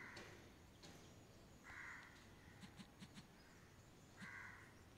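Near silence: faint room tone with three faint short sounds, near the start, just before two seconds and past four seconds.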